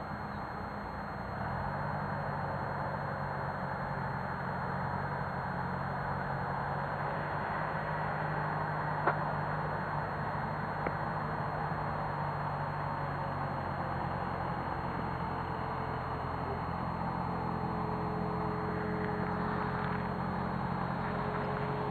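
A steady low engine hum, a little louder from about a second in, with two short clicks near the middle.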